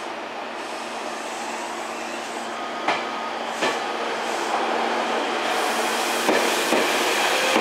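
Meitetsu 9100-series electric commuter train pulling out of a station platform and picking up speed, growing louder. Its wheels clack over rail joints a few times, and a rising motor whine starts near the end.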